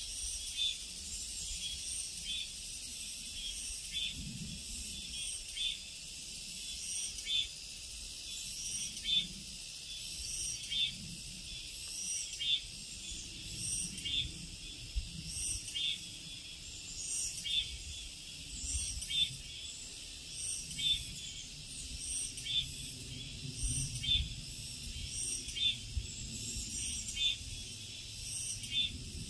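Summer forest insects singing: short high-pitched chirps repeating about every half second to a second over a steady high-pitched drone, with a faint low rumble underneath.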